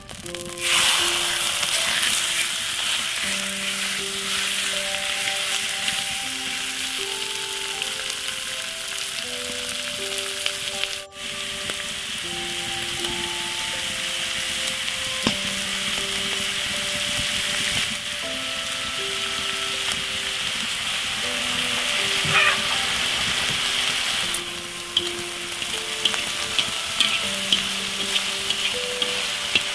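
Diced pork hitting a hot cast-iron wok and sizzling loudly as it fries, the sizzle starting suddenly about half a second in. Near the end, light clicks of chopsticks stirring the meat. Soft background music with a slow melody plays underneath.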